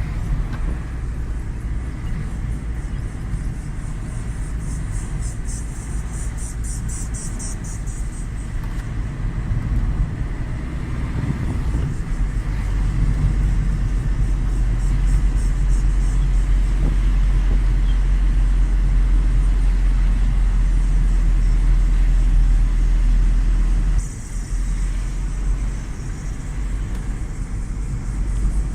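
A car driving on the road with a steady low rumble, which grows heavier about twelve seconds in and eases off suddenly near the end. A high pulsing buzz rises over it twice.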